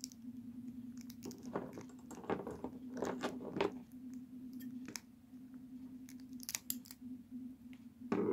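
Clear adhesive tape being handled and torn off a desk tape dispenser: a run of short crackles between about one and four seconds in, then a few light clicks and a knock near the end, over a steady low hum.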